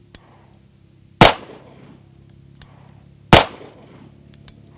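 Two pistol shots from a competition handgun, about two seconds apart, fired slowly. Faint clicks follow each shot by about a second: the audible sear click of the trigger being let forward to reset after being pinned to the rear, which marks inefficient trigger movement.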